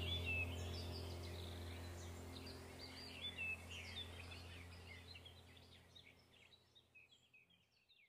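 Small songbirds chirping and calling in a jumble of short high notes over a low steady hum, the whole fading out to nothing about six seconds in.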